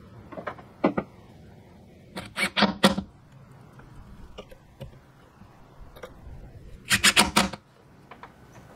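Hand-work sounds from fitting a red oak cabinet door and screwing a concealed hinge with a hand screwdriver: brief clusters of sharp wooden and metal knocks and clicks, with the fullest runs about two and a half seconds and about seven seconds in.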